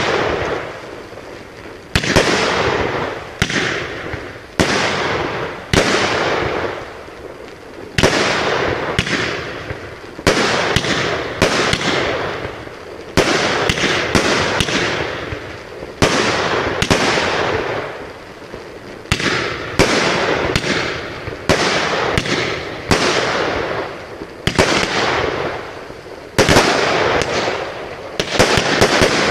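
Aerial fireworks going off one after another, about one every second or two, each sharp bang trailing off in a fading crackle.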